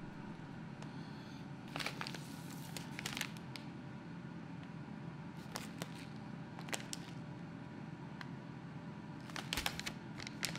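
Faint kitchen handling noises: scattered crinkles and clicks in three short clusters, over a steady low hum.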